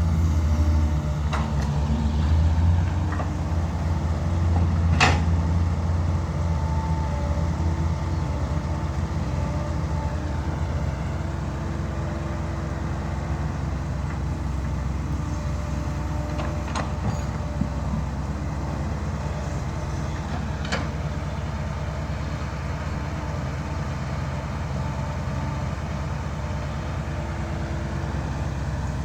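Dump truck's diesel engine pulling under load in second gear, low range, louder for the first few seconds and then running steadily, with three sharp knocks or rattles along the way.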